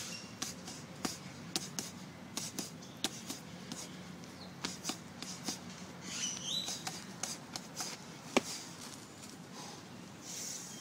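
Repeated blows of bare forearms, fists and shins against a tree trunk: sharp, irregular smacks about two or three a second, one much louder than the rest about eight seconds in.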